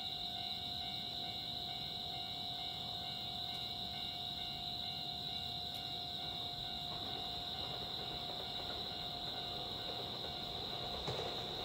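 Japanese railway level crossing warning bell ringing steadily, with the noise of an approaching train building up underneath it and growing louder near the end.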